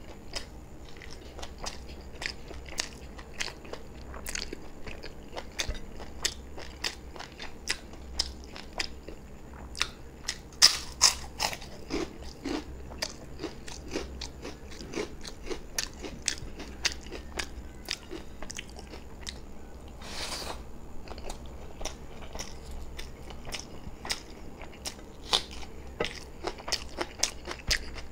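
A person chewing and biting mouthfuls of beef biryani eaten by hand, with frequent sharp crunches and mouth clicks that come irregularly. The loudest bites come a little before halfway.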